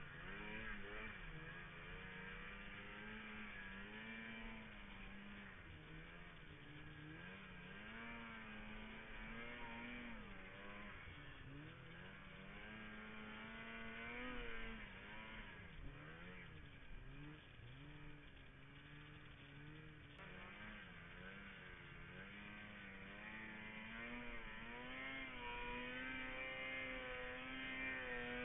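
Snowmobile engine running under the rider, its pitch rising and falling again and again as the throttle is worked through deep snow, climbing higher near the end.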